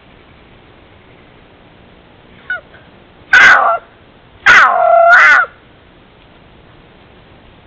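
Florida panther calling close to the microphone: a faint short call, then two loud, wailing calls, the last about a second long, dipping and then rising in pitch.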